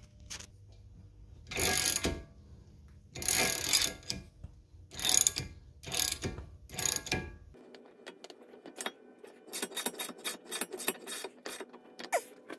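Ratchet wrench cranking the forcing screw of a hub installer tool, pressing a new front wheel hub into its bearing. First come several separate noisy strokes, then a faster, even run of clicking over the last few seconds.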